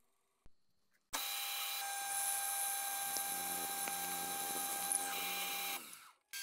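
Milling machine spindle driving an annular cutter through steel plate: a steady mechanical whine with cutting noise and a few sharp ticks. It starts suddenly about a second in after a near-silent moment and dies away shortly before the end.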